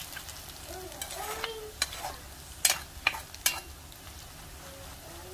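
Diced tofu frying in oil in a pan, a steady sizzle, while a metal ladle stirs it, clacking sharply against the pan four times in the middle.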